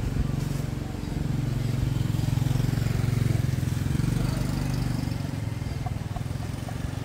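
A small engine running steadily, getting louder about a second in and easing off again after about five seconds.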